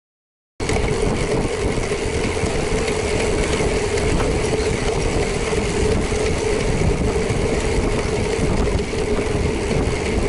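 Motorcycle riding at a steady pace: an even engine hum under wind and road noise, cutting in suddenly about half a second in.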